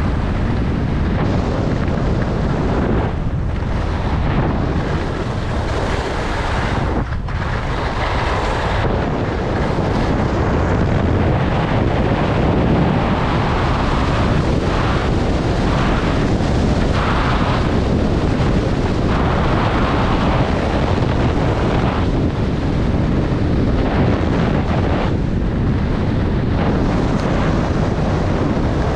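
Loud, steady wind buffeting on the microphone from fast downhill skiing, over the hiss of skis running on groomed snow.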